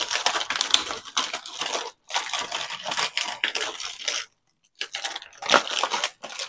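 Plastic snack bag of seaweed snacks crinkling and crackling as it is handled and folded shut. The crackling comes in a string of bursts, with a short break a little over four seconds in.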